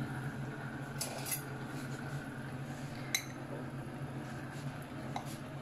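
A metal spoon clinking lightly against a glass bowl of batter a few times as a potato roll is dipped and coated, the clearest clink about three seconds in, over a steady low hum.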